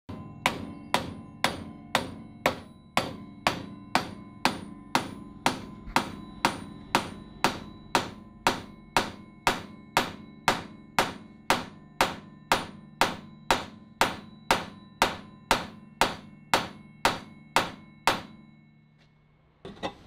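Hammer blows on a steel rivet, closing it by hand over a rove, with a heavy steel weight backing it. The blows come evenly, about two a second, each with a ringing tail, and they stop shortly before the end.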